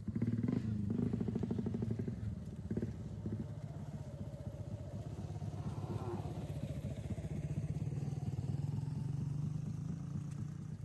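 A small engine running steadily with a fast, even pulse, like a motorcycle engine ticking over.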